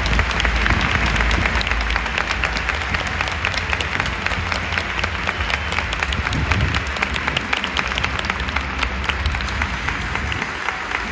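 A large crowd applauding, many hands clapping at once in a dense, irregular patter, with a low rumble underneath.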